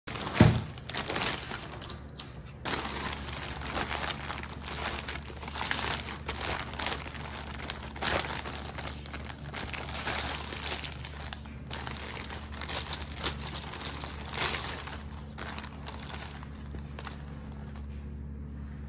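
Thin plastic packaging crinkling and rustling as hands handle a clear plastic bag and a poly mailer, in irregular crackling bursts. A sharp thump right at the start, and a steady low hum underneath.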